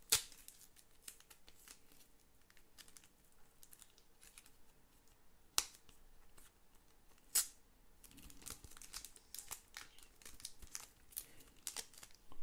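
Thin plastic card sleeve crinkling and ticking as fingers pick at the sticker that seals it, with three louder sharp snaps: one right at the start, then two more about five and a half and seven seconds in.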